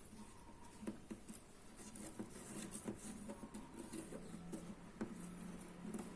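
Faint, irregular light taps and clicks of small handling work at an acoustic guitar's bridge while boiling water is applied to soften the old glue.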